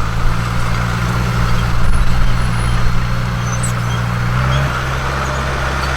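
Heavy diesel engine of earthmoving equipment running steadily under load, its engine note shifting to a new setting about four and a half seconds in.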